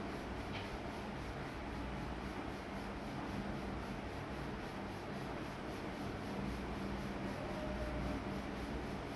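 Steady low background noise with a faint low hum; no distinct sound event stands out.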